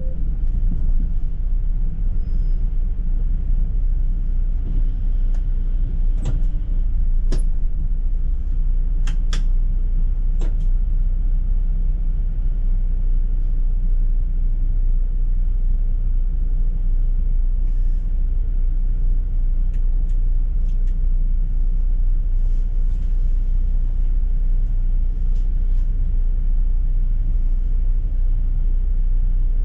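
City bus running, heard from inside: a steady low engine and road rumble, with a few sharp clicks and rattles in the middle.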